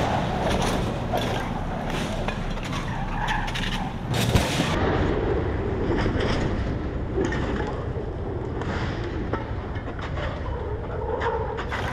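Stunt cars running hard with tyres skidding on asphalt, and a sharp bang about four seconds in.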